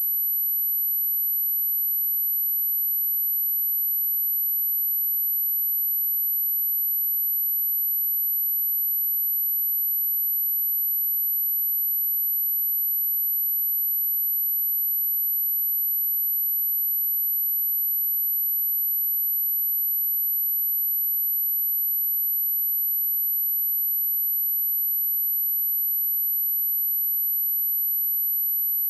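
A single steady sine-wave test tone at 11831 Hz, a very high unbroken whistle held at one pitch and level, played to test and clear a speaker of water and dust.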